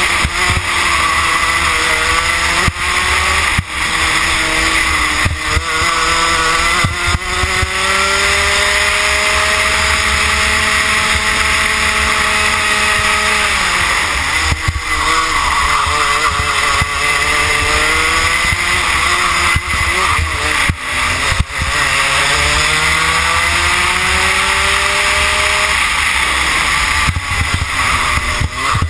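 Rotax Max 125cc two-stroke kart engine running hard on track, its pitch climbing steadily on the straights and dropping sharply each time the throttle is lifted for a corner, a few times over.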